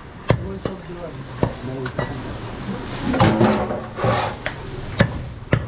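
A heavy butcher's knife knocking against a wooden tree-stump chopping block while goat meat is cut and trimmed: about seven sharp knocks, irregularly spaced.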